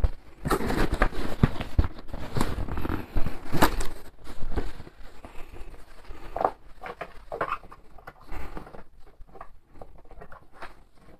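A cardboard parcel being opened and handled by hand: irregular rustling, crinkling and tearing of cardboard and packing, with scattered small knocks.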